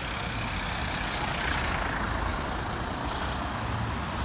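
Cars passing close by on a town street: engine and tyre noise that swells about halfway through and then eases off, over steady traffic hum.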